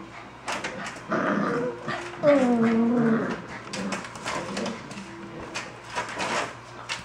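Golden retriever puppies whimpering and scrabbling at the pen with their paws, with many short scratches and clicks. A longer, drawn-out vocal sound falls in pitch about two seconds in.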